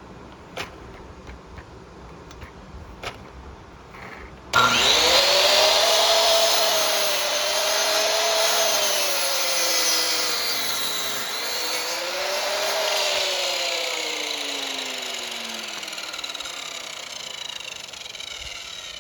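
Electric saw cutting through lumber: after a few light clicks, the motor starts suddenly about four and a half seconds in, its pitch dipping and wavering as the blade bites, then winds down with a steadily falling pitch over the last few seconds.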